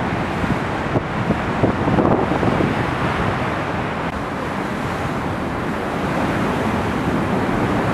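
Storm waves breaking over coastal rocks, a steady rush of surging water and foam, with wind buffeting the microphone.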